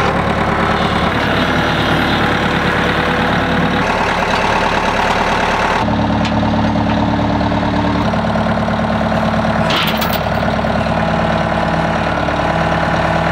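Kubota compact tractor's diesel engine running steadily, its note shifting a few times while it pulls on a chain wrapped around a tree stump that does not budge.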